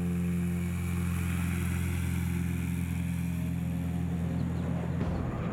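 Light aircraft's engine running at a steady pitch in flight, a constant low hum.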